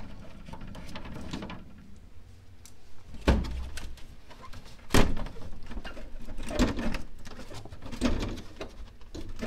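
Scattered clicks and knocks of hand tools working the fender bolts on a BMW E92 M3, with two sharper knocks about three and five seconds in, the second the loudest.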